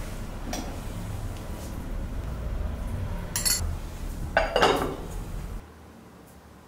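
A metal spoon clinking against a small ceramic bowl of salt, then a glass pot lid set down onto a cooking pot with a loud clatter about four and a half seconds in, over a low steady hum that stops shortly after.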